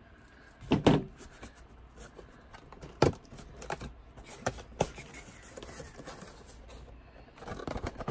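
Cardboard action-figure box being opened by hand: sharp clicks and knocks of the box flap and card, loudest about one and three seconds in, with a few lighter taps between. Near the end the clear plastic tray crinkles and crackles as it is pulled out of the box.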